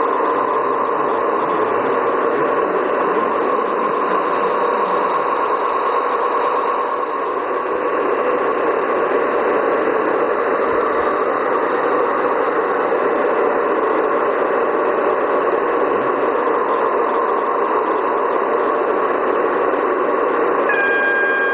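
Gauge 1 model of a DB class 211 diesel locomotive, double-headed, running with its onboard sound module playing a steady diesel engine sound through a small speaker. A steady high tone joins near the end.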